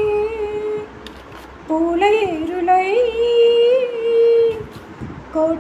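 Background song: a woman singing long held notes in slow melodic phrases, with short pauses about a second in and near the end.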